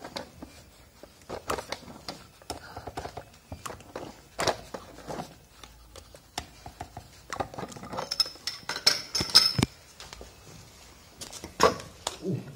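Handling sounds of metal pipe fittings and a small electric pump being put together: irregular clicks and knocks, with a run of metallic clinks a little past halfway that ends in a sharp knock, and another knock near the end.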